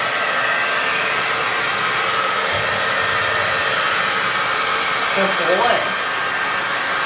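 Handheld hair dryer running steadily, blowing on a damp puppy's coat.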